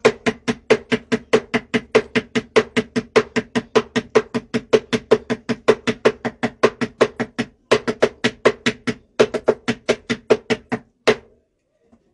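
A drum beaten in a fast, even rhythm of about five strokes a second, each stroke with the same low pitch. It pauses briefly twice and stops shortly before the end.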